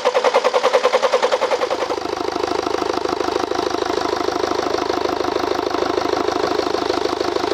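BMW 520d four-cylinder diesel cranking over with an even, fast pulsing, then catching about two seconds in and running steadily at idle. This is its first start after being flooded, once the water has been drained from the cylinders. The mechanic judges the engine sound to be fine.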